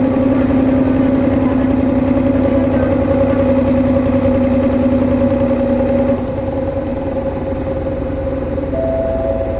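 Hino HU2ML Blue Ribbon bus running, its engine and drivetrain giving off steady droning tones over the engine noise: the unusual noise, unlike a normal Blue Ribbon, that the uploader puts down to this prototype's relocated engine layout. About six seconds in the lower tone stops and the sound gets quieter, and a short higher tone comes in near the end.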